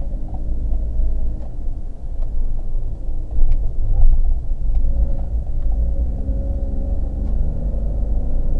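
Car driving, a steady low rumble of engine and road noise picked up by a dashcam's microphone.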